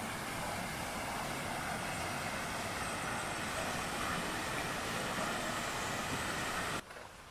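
Small snow-covered mountain stream running over rocks: a steady rushing hiss that cuts off abruptly near the end.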